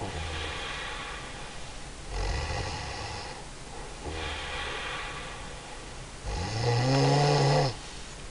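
A woman snoring: three breathy snores about two seconds apart, then a louder snore with a buzzing, pitched tone near the end.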